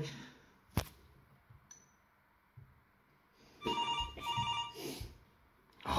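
Telephone ringing: an electronic ring in short bursts in quick succession, starting a few seconds in. A single sharp click about a second in.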